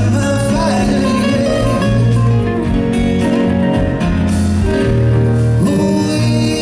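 Live band music: acoustic guitar playing over sustained keyboard chords and a bass line.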